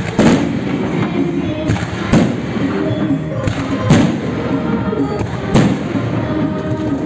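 Aerial firework shells bursting in a string of sharp bangs, roughly one a second, over music playing underneath.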